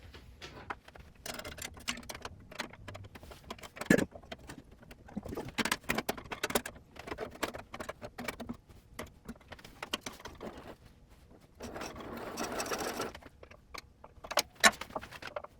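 A steel bandsaw blade being slid back onto the wheels of a Craftsman 12-inch bandsaw: irregular metallic clicks, ticks and rattles, with a sharp knock about four seconds in and a longer scraping rustle about twelve seconds in.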